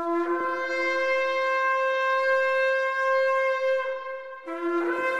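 Shofar (ram's horn) blown in a long blast that starts on a low note and breaks up to a higher held note, ending about four seconds in. A second blast follows near the end, again jumping from the low note to the high one.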